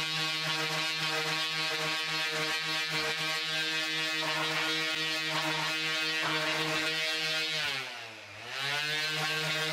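Electric random-orbital sander running with a steady hum while sanding the edges of a polypropylene motorcycle seat cover. About eight seconds in its motor slows and the sound drops, then it speeds back up.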